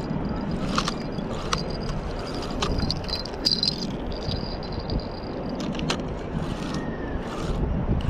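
Spinning reel being cranked to retrieve line: a thin whirr from the turning rotor with scattered small clicks, the whirr stopping about six seconds in. Low wind rumble on the microphone underneath.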